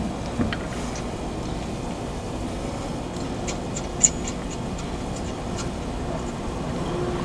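Steady low rumble with a short run of light clicks, the sharpest about four seconds in.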